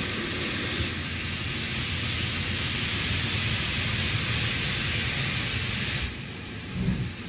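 Steam locomotive letting off steam: a steady hiss that starts about a second in and cuts off sharply near the end, over the low rumble of wind buffeting the microphone. A brief low thump comes just after the hiss stops.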